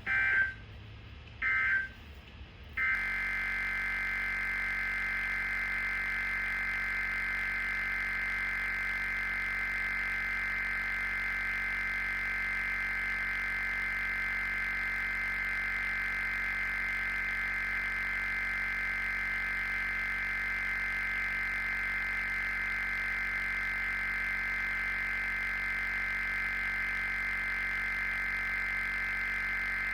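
Emergency Alert System digital data tones, a harsh two-pitch buzz. Three short bursts come about a second apart: the end-of-message code closing the severe thunderstorm warning. Then the same two-pitch data tone holds on steadily without a break.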